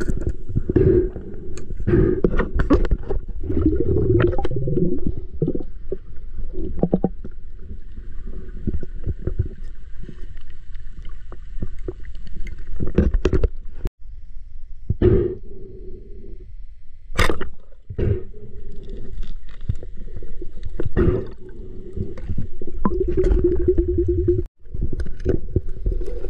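Water sloshing and gurgling with a low rumble, broken by many short knocks and bumps.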